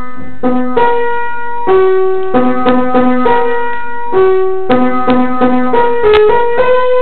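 Piano or keyboard playing a short tune of struck notes and chords, each note ringing on until the next.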